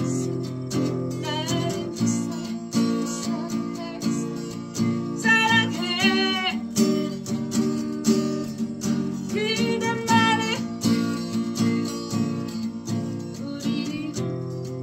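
Acoustic guitar strummed steadily, with a woman singing over it in a few held lines.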